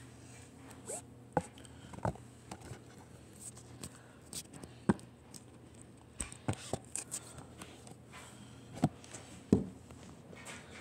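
Handheld phone being moved about: scattered, irregular knocks and rubbing against the microphone, over a faint steady hum.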